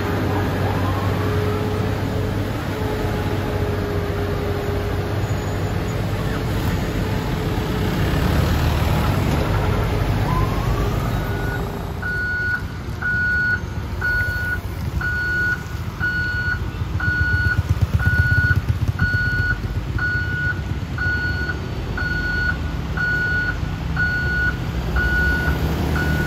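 Heavy truck diesel engine running steadily in the first half. About halfway through, a truck's reversing alarm starts beeping at an even pace, about three beeps every two seconds, over the engine rumble.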